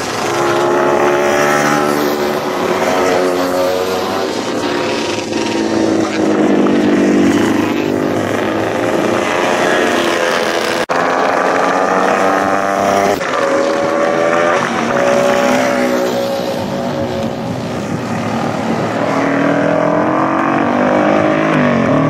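Classic racing motorcycles' engines running hard as the bikes pass one after another, the engine pitch rising and falling several times.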